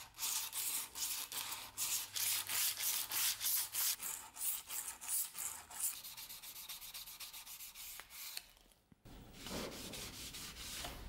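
Abrasive paper wrapped around a file rubbed by hand back and forth over the bevel of a steel cleaver blade, quick, even strokes about three a second. Near the end the strokes stop briefly, then a softer rubbing, a cloth wiped over the blade, follows.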